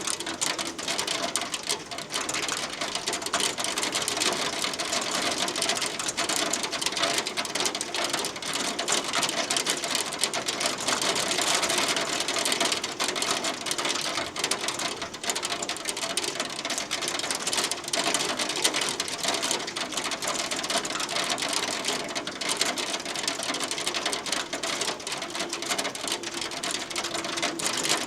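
Hail falling, a dense, steady rattle of countless small ticks with no let-up.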